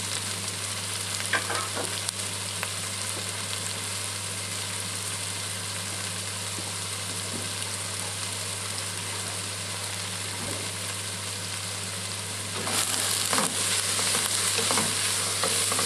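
Sliced onions and chorizo sizzling steadily in a stainless steel pot over medium-high heat. About three seconds before the end, a wooden spoon starts stirring them and the frying gets louder, with scraping against the pot.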